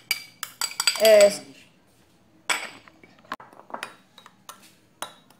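A metal spoon clinking and scraping against glass as it scrapes a small glass and stirs powdered milk in a glass bowl: a run of sharp, short ringing clicks, with a louder, longer scrape about a second in and another about two and a half seconds in, then lighter taps.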